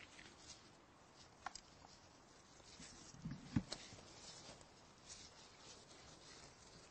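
Faint handling sounds: light rustling with a few small clicks and knocks, the loudest a sharp click about halfway through.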